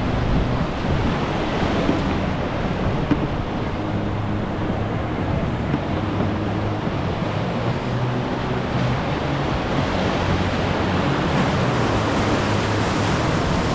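Whitewater rapids rushing steadily around a river sweep boat, with wind on the microphone.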